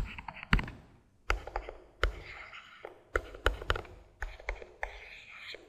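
Pen stylus tapping and scratching on a drawing tablet while small dots, circles and letters are drawn: about a dozen irregular sharp taps, with faint scratchy strokes between them.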